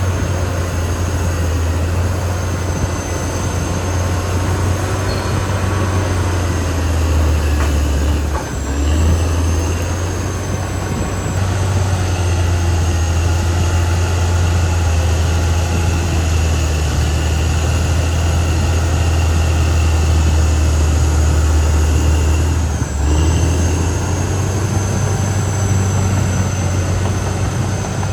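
Caterpillar D6R XL crawler bulldozer working, its diesel engine running steadily with a thin high whine above it. The engine note dips briefly twice, about a third of the way in and again near three-quarters.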